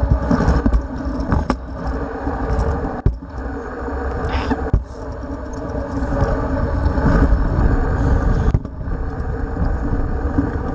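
Stunt scooter wheels rolling over concrete: a steady rumble, broken by a few sharp knocks.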